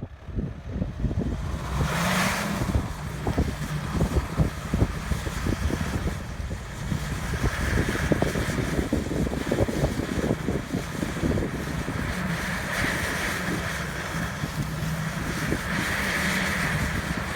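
Off-road SUV engine running under load while driving over rough terrain, with many short knocks and thumps from the body and suspension and gusts of wind on the microphone.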